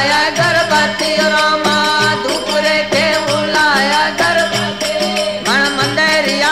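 Rajasthani desi bhajan music: a bending melody over a steady drone, with a regular drum beat.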